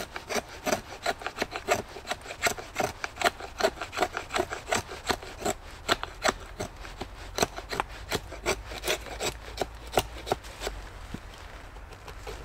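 Quick, even rasping strokes on wood, about four a second, that stop about eleven seconds in.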